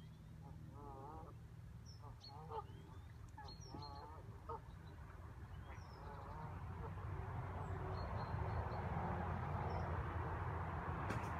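Waterfowl calling on the lake: several short honking calls with a wavering pitch in the first half, with faint high bird chirps among them. A steady rushing noise builds from about halfway through and becomes the loudest sound.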